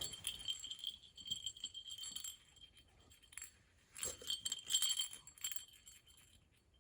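A small bell on a cat's collar bow tie jingling as the cat paws and tugs at it, in two spells with a short quiet gap between.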